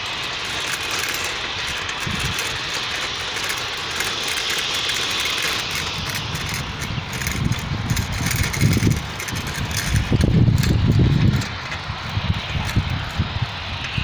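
Riding a bicycle, with a steady hiss and wind rumbling on the microphone in uneven gusts, strongest about ten to eleven seconds in.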